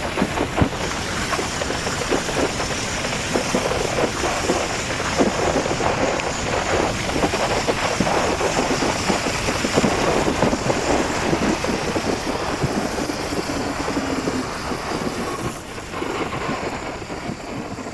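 Wind buffeting the microphone of a moving motorcycle, with rushing road and engine noise underneath; it eases a little near the end.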